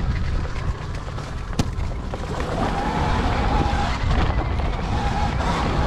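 A pit bike running, its pitch rising and falling repeatedly over a heavy low rumble, with one sharp click about a second and a half in.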